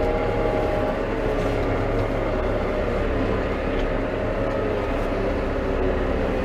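New Holland T5.120 tractor's four-cylinder diesel engine running steadily while the tractor manoeuvres at low speed, its note shifting slightly in the first second.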